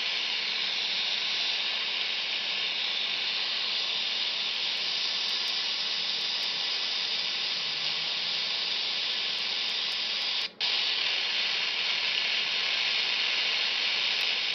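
Steady receiver static hissing from a Quansheng UV-K5 handheld radio's speaker while it is tuned to an FT8 frequency, with no FT8 tones coming through. The radio's HF receive is too insensitive to pull in signals below about S9. The hiss cuts out for a split second about ten and a half seconds in.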